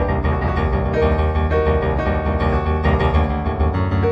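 Background piano music: an improvised piece with a steady flow of notes.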